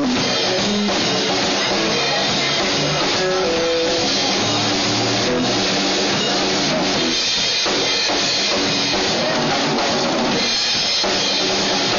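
Live blues band playing a shuffle: electric guitars over drum kit and bass.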